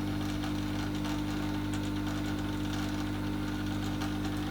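Steady electrical hum of a running heating appliance, a motor or fan drone holding several fixed tones without change.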